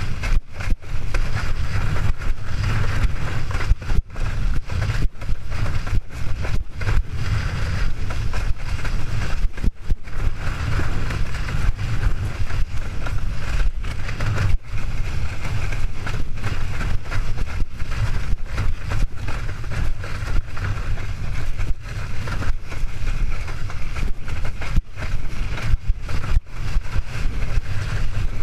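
Heavy wind buffeting on the microphone over the rush and spray of water under a slalom windsurf board planing at speed, broken by frequent brief dropouts.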